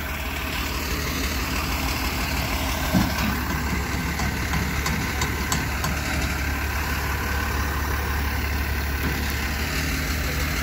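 Rollback tow truck's engine running steadily while its winch pulls a pickup backwards up the tilted flatbed, with a few light knocks along the way.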